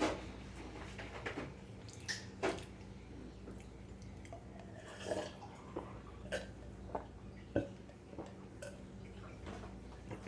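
Quiet eating sounds: an Oreo cookie being bitten and chewed, with scattered small clicks and soft handling noises every second or so over a faint steady hum.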